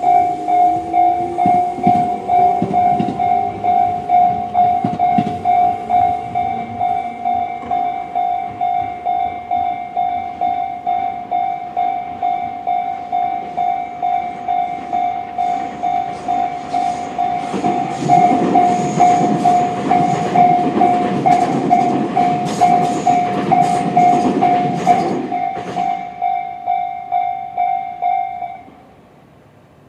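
Electronic level-crossing bell with the Tobu 'C' tone, ringing in a steady fast repeat while electric trains pass over the crossing: a rising motor whine near the start, then louder wheel clatter over the rail joints in the second half. The bell stops shortly before the end as the crossing clears.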